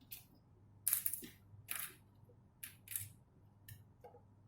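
Small kit parts being set down and sorted in a tool tray: a series of short, sharp clicks and clacks, about six or seven, at irregular intervals.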